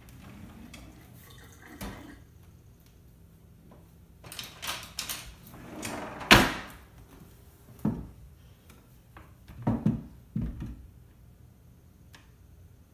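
Kitchen drawer pulled open with utensils clattering inside as a spoon is taken out, then shut with a sharp knock a little past the middle; a few more knocks follow.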